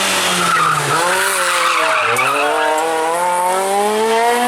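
Rally car's engine at full effort on a stage: the revs drop twice as it brakes and changes down, with the tyres skidding, then climb steadily as it accelerates hard through the gear. The revs fall suddenly at the end on the next upshift.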